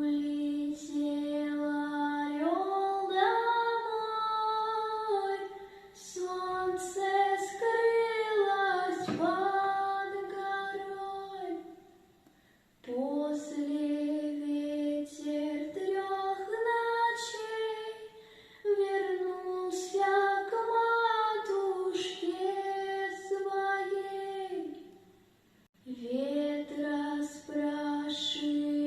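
A 12-year-old girl singing a Russian lullaby solo without accompaniment, in long held phrases. She breaks off briefly twice, about twelve seconds in and again near the end.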